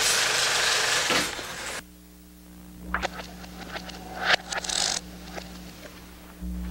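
Foley effect of rocks played back: a loud gravelly scraping rush for nearly two seconds, then scattered small clicks and rattles, over a steady electrical hum.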